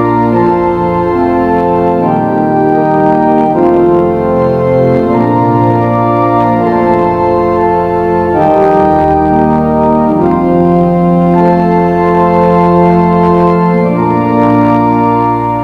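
An organ playing slow, sustained chords over held bass notes, the harmony changing every second or two.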